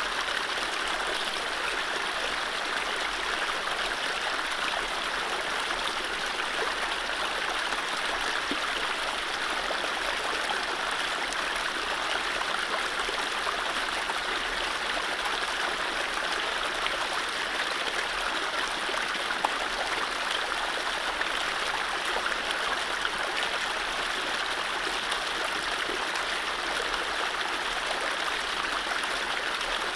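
Mountain stream running over low rapids: a steady rush of water with trickling and gurgling, and no birdsong.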